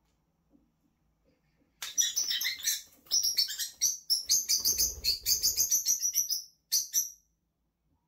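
Peach-faced lovebirds chattering in rapid, high-pitched chirps. The chirping starts about two seconds in, runs on densely, and ends with a short last burst near the end.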